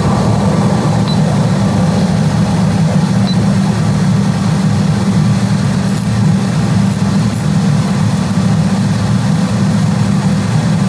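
TIG welding arc on aluminium, buzzing steadily and loudly with a crackling hiss over a low hum.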